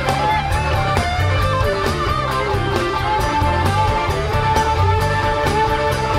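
Live rock band playing an instrumental passage: a lead electric guitar line of long, bending notes over bass and a steady drum beat.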